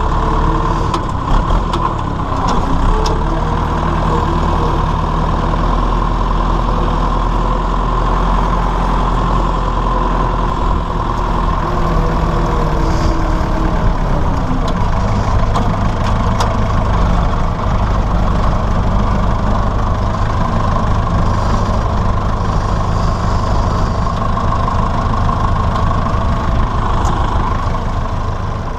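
Massey Ferguson 168 tractor's four-cylinder Perkins diesel engine running steadily. About halfway through its note changes and settles into an even, deeper idle.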